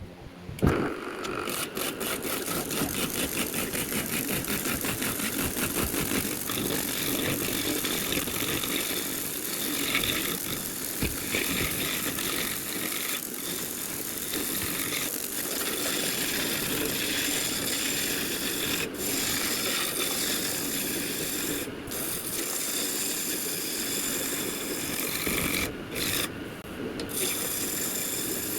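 Wood lathe turning a wooden table-leg blank, with a continuous rasping scrape of wood against the tool held to it. A few brief drop-outs come in the second half.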